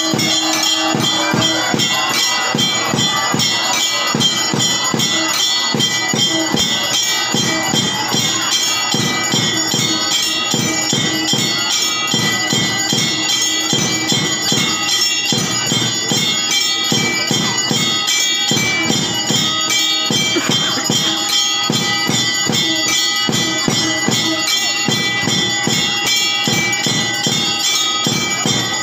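Temple bells ringing rapidly and without a break during the arati lamp-waving, a dense run of quick strikes with many ringing tones held over them.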